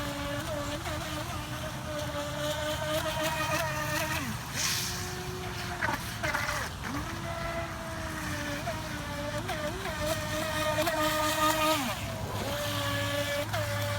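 Electric motor of a radio-controlled speedboat whining at speed on the water, its pitch bobbing with short throttle blips. It is throttled off and back up about four seconds in, again around six to seven seconds, and near the end.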